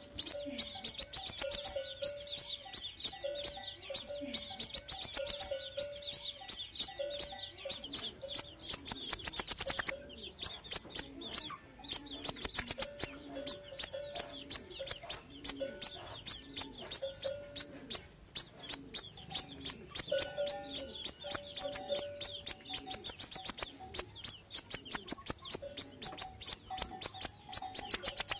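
Sunbird singing: long, very rapid runs of high, sharp repeated notes, broken by short pauses about ten, eighteen and twenty-three seconds in.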